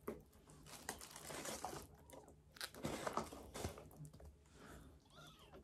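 Young kittens eating wet food from small plastic bowls: irregular wet chewing and smacking with little clicks and scrapes of the bowls and the crinkle of a tissue, and a faint kitten mew a little after five seconds in.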